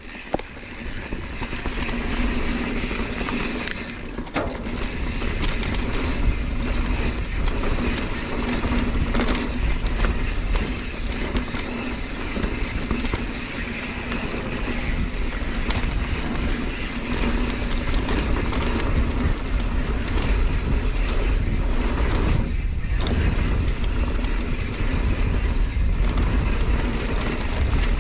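Wind buffeting a mountain bike's camera microphone and knobby tyres rolling over a dirt trail at speed on a descent, building over the first couple of seconds as the bike picks up speed. Scattered knocks and rattles as the bike goes over bumps.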